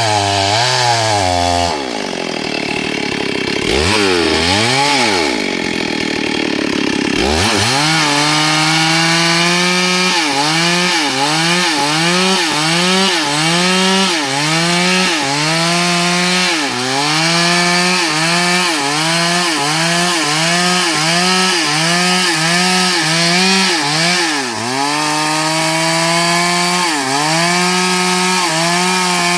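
A STIHL MS382 two-stroke chainsaw dropping toward idle with a couple of brief revs, then held at full throttle cutting hardwood. Its engine speed dips and recovers about once a second as the chain bites into the log.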